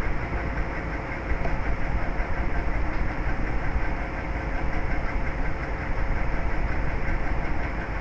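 Steady mechanical background noise, heavy in the low range, with a faint steady hum over it.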